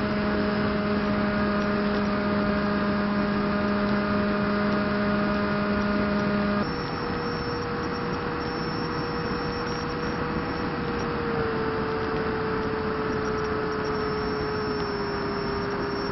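Stryker flying wing's 2212 brushless motor spinning a 7x4 APC propeller, a steady whine over wind rush, heard through the onboard keychain camera. About six and a half seconds in the sound changes abruptly and gets a little quieter. After that the whine steps down in pitch twice, with the 3S lipo running low.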